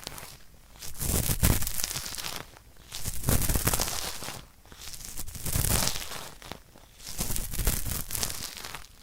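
Cotton swab rubbed hard inside an ASMR microphone's ear, meant as scraping at hard earwax. It makes a scratchy grinding rub in four bouts with short pauses between them.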